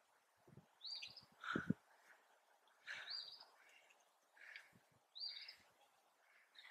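A bird calling repeatedly, a short high call about every two seconds, three times. A few low thumps in the first two seconds, the loudest about a second and a half in.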